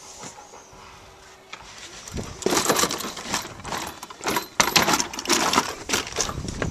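Footsteps clattering on the wooden boards of a playground structure: a quick, irregular run of knocks that starts about two seconds in.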